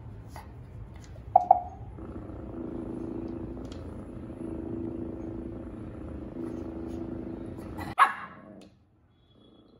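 A small dog gives a short double bark, then a low steady rumbling sound runs in three stretches of about two seconds each. It ends in a sharp louder cry.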